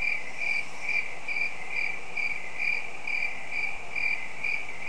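Cricket chirping sound effect: an even run of short, high chirps, a little over two a second. It is the stock 'crickets' effect used to fill an awkward wait.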